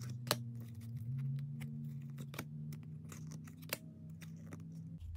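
Trading cards being flipped through by hand, the card edges clicking and scraping as each one is slid off the stack, in irregular small clicks over a faint low steady hum.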